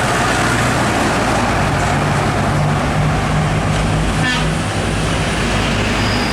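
A heavy truck passing close by on the highway, its diesel engine humming over loud tyre and road noise that fades about five seconds in.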